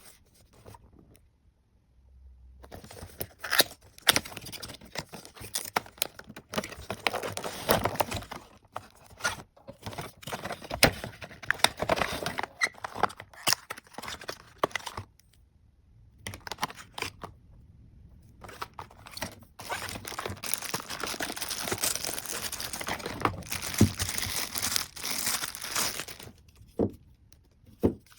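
Unboxing: packaging being torn open and crinkling, with scrapes and knocks of the box, in irregular bursts and a lull around the middle.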